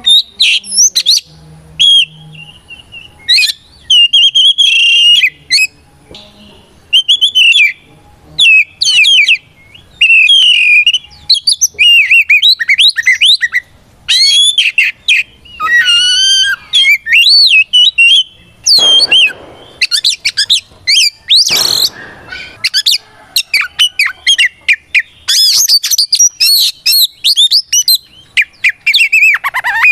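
Oriental magpie-robin singing a loud, continuous, fast-changing stream of clear whistles, slurs and trills. Two short harsh rasps come about two-thirds of the way through.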